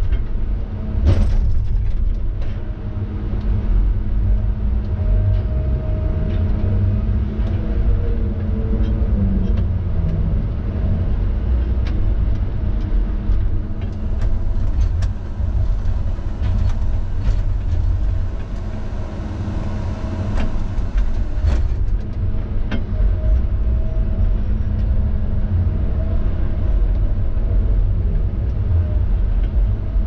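Diesel engine and hydraulics of a Tigercat log loader heard from inside its cab: a steady low rumble whose pitch shifts as the boom and grapple are worked. Scattered short knocks and clicks sound over it.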